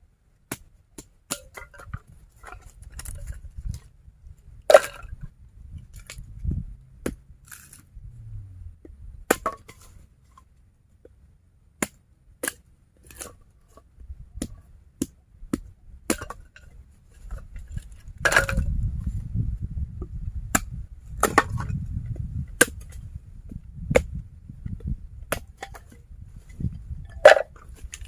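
A series of sharp knocks and cracks at irregular intervals, roughly one every second or so, with three louder blows standing out. A low rumble runs under some of them.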